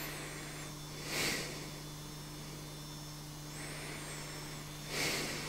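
Steady low electrical hum, with two soft breaths from a man lying in bed, one about a second in and one near the end.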